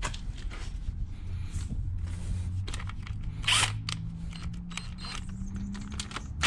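Clicks and knocks of tools being handled while a cordless impact driver's socket is fitted onto the clutch nut, with one brief louder rattle about three and a half seconds in. A steady low hum runs underneath.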